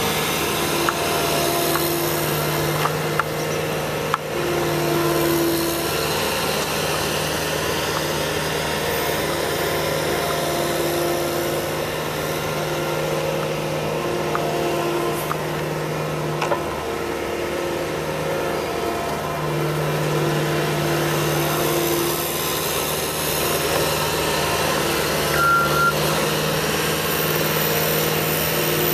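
Skid steer loader engine running steadily under varying throttle, its note dropping briefly about two-thirds of the way through. A reversing alarm beeps briefly near the end.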